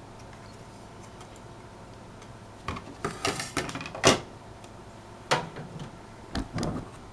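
A run of sharp clicks and knocks as the router's case is handled and opened, the loudest about four seconds in, over a steady low background.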